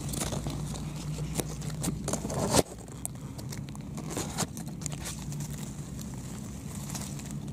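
Grass blades rustling and scraping against the microphone in short crackles, the loudest about two and a half seconds in, over a steady low hum.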